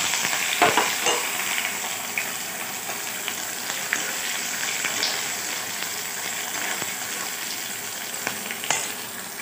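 Sliced onions sizzling in hot oil with bay leaves in a kadai, stirred with a steel spatula that clicks and scrapes against the pan now and then. The sizzle is strongest as the onions go in and eases gradually.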